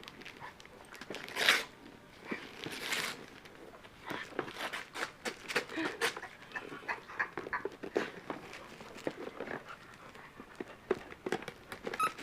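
A puppy panting while tearing into a wrapped present: two longer rips of paper about one and a half and three seconds in, then many quick crinkles and rustles of the wrapping.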